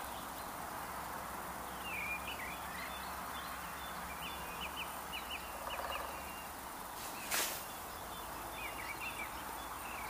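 A great spotted woodpecker drumming faintly in the distance, one rapid roll about halfway through, with small birds chirping in short notes and a steady low outdoor rumble. A brief sharp rustle comes about seven seconds in.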